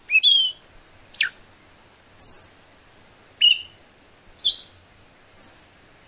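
Scaly thrush singing: short, high whistled phrases, about one a second with short pauses between, some of them sliding down in pitch.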